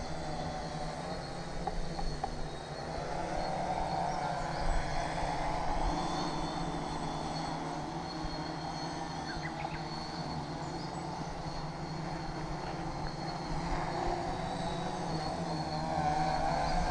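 Tarot FY-680 hexacopter's electric motors and propellers droning steadily in flight, swelling and easing a little in loudness.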